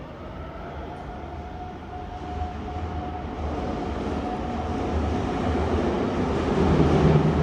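Subway train approaching through the tunnel, its rumble growing steadily louder.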